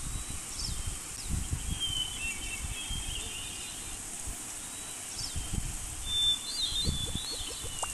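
Small birds chirping in short, high twittering phrases, over a low, uneven rumbling noise.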